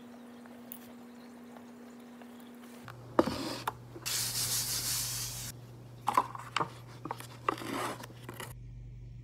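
A Nongshim instant noodle cup knocked down on a table about three seconds in, then its wrapping and paper lid torn and peeled: a long rasping tear, then a run of crinkles and small clicks.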